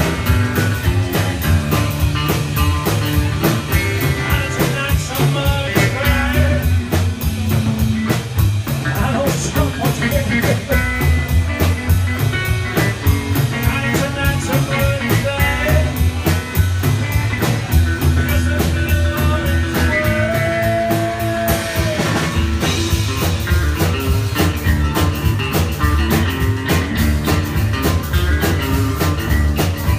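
Rock band playing live: electric guitar over bass and drums with a steady beat, the guitar bending a few notes about two-thirds of the way through.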